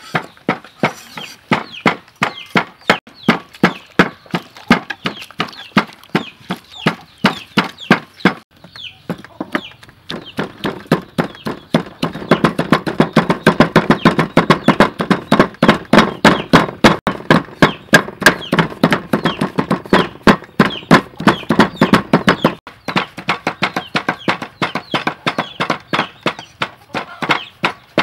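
Cleaver chopping fish on a thick round wooden chopping block: a fast, even run of knocks, with wooden pestle strokes in a mortar among them. The chopping turns quicker and louder for about ten seconds in the middle.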